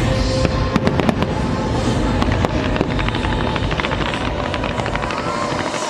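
Fireworks display: a rapid, dense run of sharp bangs and crackles over a constant low rumble.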